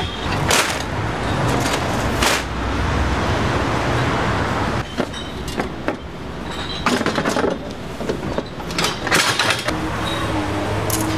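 Metal folding bistro tables being set up and carried, giving several sharp knocks and clatters over steady street traffic noise.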